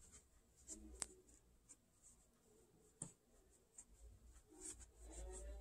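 Faint rustling of fabric and stuffing as a cloth doll is stuffed with metal forceps, with two sharp clicks about one and three seconds in.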